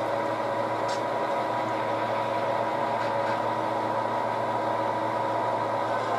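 HO scale model diesel locomotive moving a cut of cars slowly, with a steady engine-like hum, and a light click about a second in.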